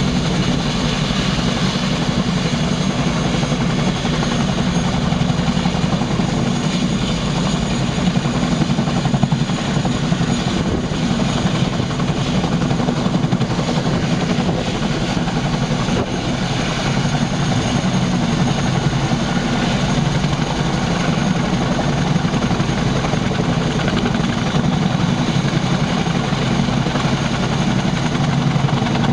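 Boeing Chinook HC4 twin-rotor helicopter taxiing on the ground, its tandem rotors turning and twin turboshaft engines running steadily, with a high turbine whine over the deep rotor noise.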